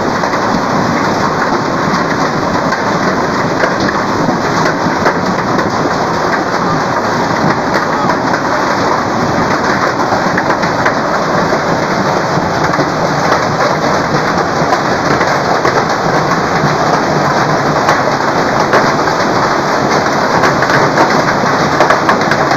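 Hailstorm: hail and heavy rain pelting the ground in a dense, steady roar, peppered with sharp ticks of hailstones striking.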